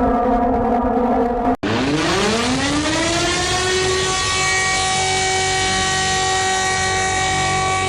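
A steady alarm tone cuts off about a second and a half in, and a civil-defense siren starts winding up, its pitch rising over about two and a half seconds and then holding one steady wail.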